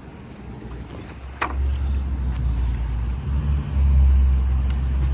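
Car driving: a low engine and road rumble that swells about a second and a half in and grows louder again near four seconds, as the car picks up speed.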